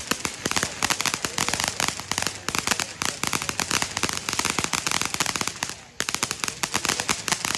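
Proud Peacock fireworks fountain crackling: a dense, rapid stream of sharp pops, with a brief lull about six seconds in.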